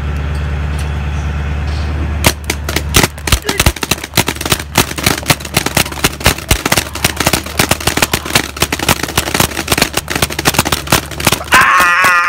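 Paintball guns firing rapid strings of sharp pops, several a second, starting about two seconds in, after a low steady hum. A brief warbling high-pitched sound comes in near the end.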